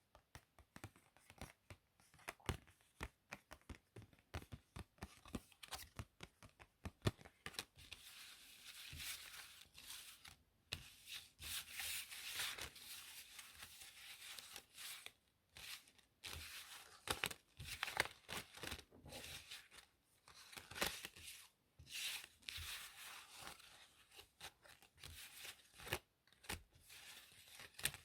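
Playing cards handled close to the microphone. First a run of quick crisp clicks and snaps, then, from about eight seconds in, longer sliding and rustling of card faces broken by sharp snaps.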